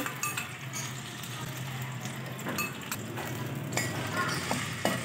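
A steel ladle clinks and scrapes against an aluminium pan as ginger-garlic paste is stirred into cooking oil, giving scattered sharp clicks over a faint sizzle and a low steady hum.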